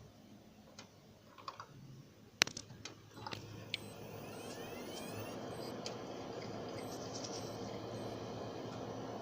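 A few sharp clicks, then a computer setup with a Seagate ST1000DX001 SSHD powering up: a brief rising whine as something spins up, then a steady running hum and hiss. The owner says the drive makes a noise from its circuit board and is not detected.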